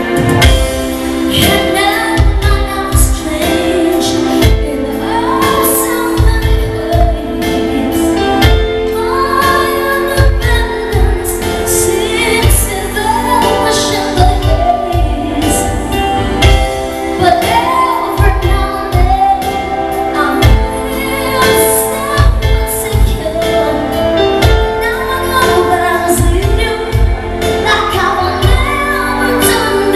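A woman singing live into a microphone over amplified backing music with a steady low drum beat.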